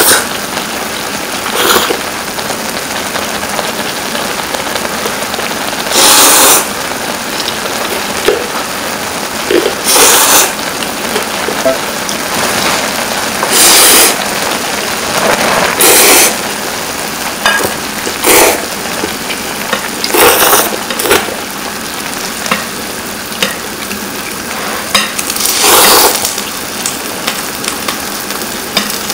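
Close-miked slurping of hot instant ramen noodles: loud sucking slurps come every few seconds over a steady hiss, with a few small clicks of chopsticks and bowls between them.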